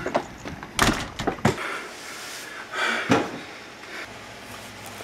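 A front door being handled and shut: a few sharp thuds about a second in, a rustle, then another thud.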